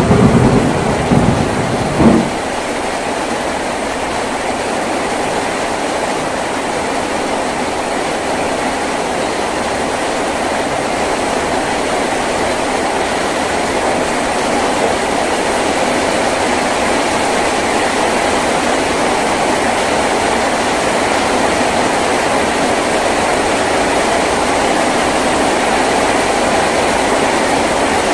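Heavy rain falling on a tin roof, a steady dense hiss that grows slightly louder. A rumble of thunder dies away in the first two seconds.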